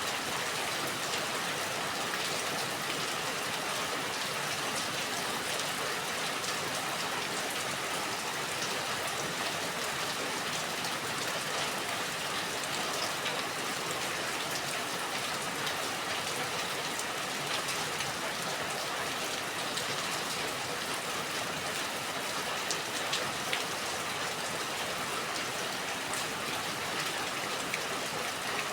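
Steady rain falling, a continuous even hiss with scattered drops ticking on a surface.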